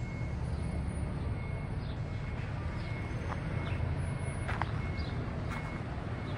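Outdoor city ambience: a steady low rumble of street traffic, with scattered short high chirps and clicks over it.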